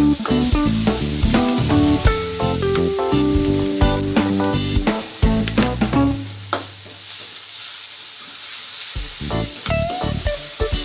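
Food sizzling as it fries in a pan, under background music that drops out for a couple of seconds in the middle, leaving the sizzle on its own.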